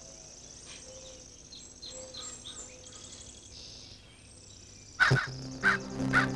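Natural ambience: a steady high insect trill with faint bird chirps. About five seconds in, loud harsh calls break in, and music with low held notes starts just after.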